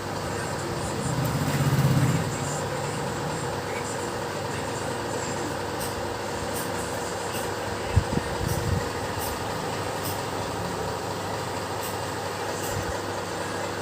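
A machine running steadily with a constant hum, a louder low rumble swelling about a second in, and a sharp knock about eight seconds in.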